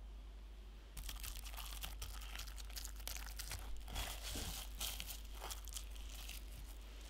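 Plastic cling film crinkling as hands stretch it over a glass bowl and press it down onto pastry cream. The crackling starts about a second in and dies away shortly before the end.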